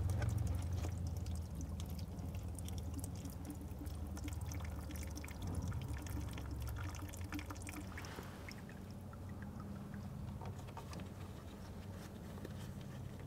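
Fuel and water draining from the fuel water separator bowl's drain into a small pan, pouring steadily at first and easing to a trickle after about eight seconds, with faint clicks of gloved fingers at the drain. The bowl is being drained to lower the fuel in the filter head before the filter comes off.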